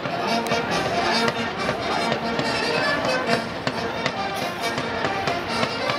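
Music playing, mixed with the irregular pops and crackle of aerial fireworks comets.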